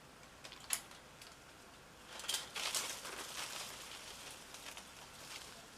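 Rustling and crackling of vines and brush being pulled and handled during land clearing, with a single sharp click or snap just under a second in.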